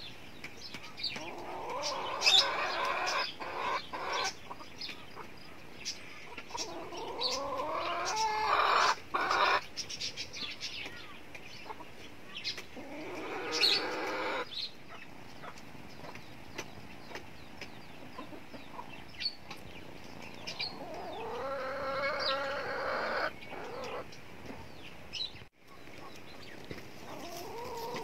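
Rooster crowing four times, long drawn-out calls spread several seconds apart, with hens clucking between them.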